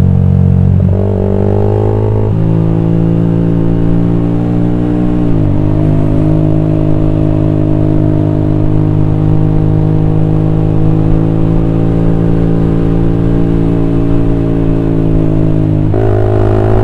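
Single-cylinder motorcycle engine of an old Honda CB150R running through a BPRO Racing 26 cm aftermarket racing silencer. Its pitch shifts a couple of times early on, dips and climbs back about five seconds in, holds nearly steady, then rises sharply near the end.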